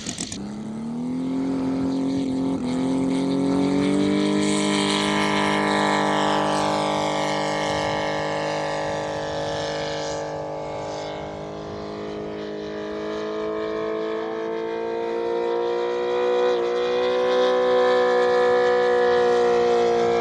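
Radio-control model airplane engine running: its pitch climbs over the first few seconds as it revs up, then holds fairly steady, drifting slowly higher and lower.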